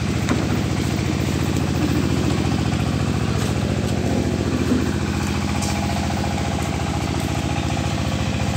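An engine running at a steady, unchanging speed, with an even low hum.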